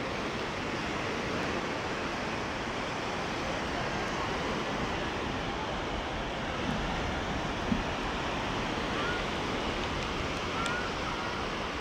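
Sea surf washing steadily onto a sandy beach, an even rushing hiss with a few small knocks about seven and eight seconds in.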